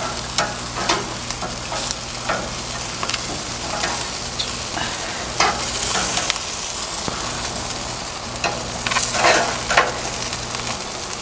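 Yogurt-marinated chicken drumsticks sizzling steadily on a hot gas grill, with scattered sharp clicks of metal tongs on the grates as the pieces are turned.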